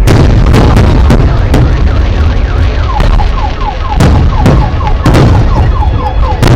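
Fireworks display: loud, irregular bangs of bursting shells, overlaid by fast warbling whistles that slide up and down in pitch.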